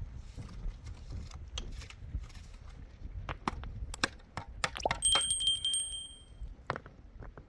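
Irregular clinks and knocks of handled objects, then about five seconds in a single bright ringing note that dies away after about a second and a half.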